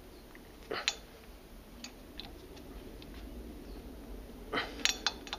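Hand ratchet clicking in short runs, a group of sharp clicks about a second in and a quicker cluster near the end, as a socket drives a pipe-thread fitting into a freshly tapped port in a power steering gearbox housing that is getting tight.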